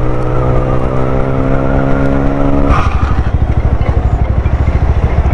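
Motorcycle engine running at steady road speed with a slowly rising drone, then about three seconds in the throttle closes and it drops to a low, uneven rumble as the bike slows down.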